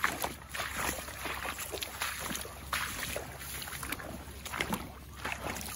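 Irregular splashing and swishing of someone wading through shallow flooded marsh water and grass, with no steady rhythm.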